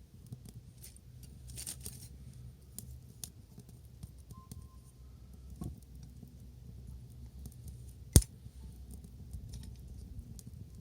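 Wood fire crackling: scattered small pops and snaps over a low steady rumble, with one sharp, much louder pop about eight seconds in.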